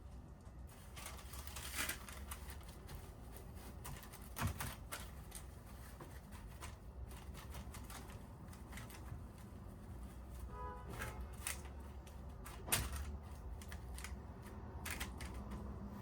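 Scattered light taps, clicks and rustles of objects being handled, with a few sharper knocks about two, four and a half and thirteen seconds in, and a brief pitched clink just before eleven seconds.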